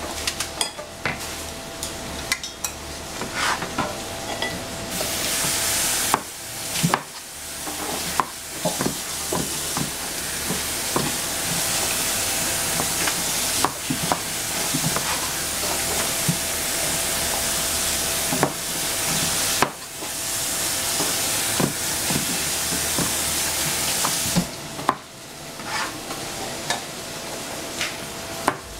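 A cleaver chopping zucchini on a cutting board, giving irregular sharp knocks of the blade on the board. Under the knocks a steady high hiss runs most of the time, cutting in and out abruptly several times.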